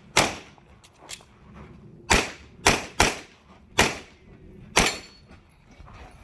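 Handgun shots fired in a practical-shooting stage: six loud sharp reports at uneven spacing, half a second to a second apart, with a fainter crack about a second in.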